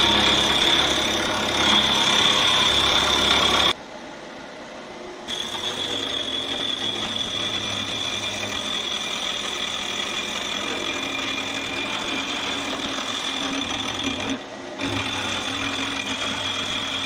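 A shop machine tool running steadily while cutting metal, with a constant high whine over a gritty cutting noise. The sound drops away sharply for a moment twice, a few seconds in and again near the end.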